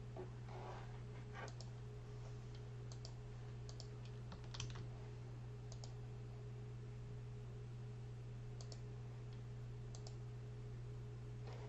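A few scattered clicks at a computer keyboard and mouse, one every second or so, the loudest about halfway through, over a steady low hum.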